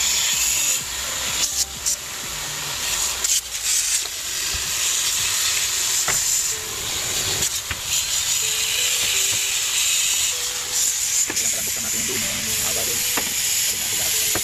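Water spraying from a garden hose nozzle onto an iced-up freezer evaporator coil to melt the ice: a steady hiss, broken a few times by short pauses.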